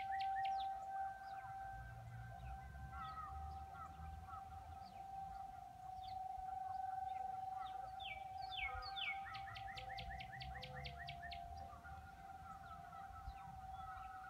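Distant Federal Signal 2001 outdoor warning sirens sounding a steady single-pitched tone during a tornado siren test; faint, the nearest siren not sounding. A bird sings a fast run of short falling notes about nine seconds in.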